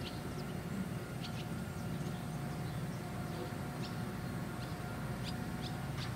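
Distant diesel engines of earthmoving equipment, a tractor pulling a scraper and a crawler machine, running steadily with a low rumble. Short, high chirps come and go over it.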